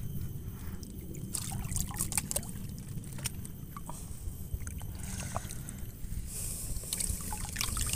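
Water hyacinth leaves and stems rustling and crackling, with soft sloshes of water, as someone pushes through a dense mat of the plants. A steady low rumble runs underneath.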